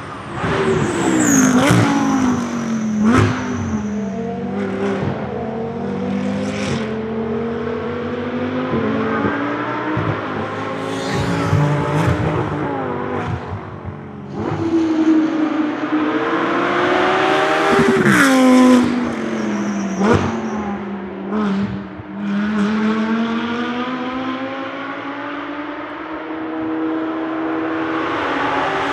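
Audi R8 LMS GT2 race car's 5.2-litre V10 engine at racing speed, its pitch falling through downshifts with sharp cracks at the gear changes, then rising again under acceleration. This happens more than once as the car laps.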